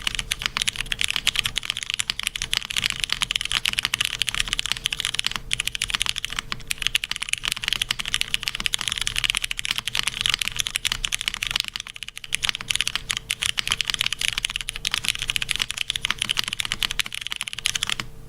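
Fast, continuous typing on a mechanical keyboard with vintage Cherry MX Brown tactile switches, GMK doubleshot ABS keycaps and a full aluminium plate, a dense stream of key clacks with brief pauses. A faint steady hum lies underneath.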